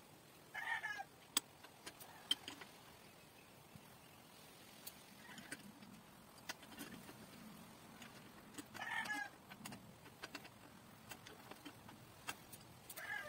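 Two short animal calls, one about a second in and one about nine seconds in, over scattered light clicks and taps of bicycle parts being handled and fitted at the front wheel.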